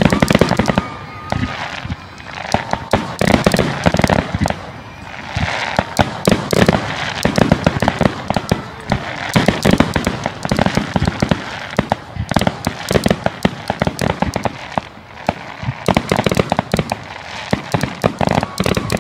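Aerial fireworks display: dense, rapid crackling and popping from glittering crackle shells, with many sharp bangs close together and the loudness rising and falling in waves.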